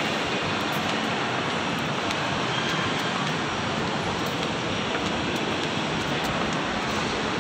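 Steady, even rushing ambience of a shopping mall's interior, a continuous wash of noise with no distinct events.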